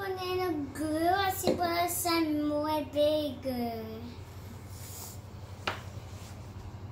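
A young girl singing a wordless tune for about four seconds, in long held notes that slide up and down; a single short click follows near the end.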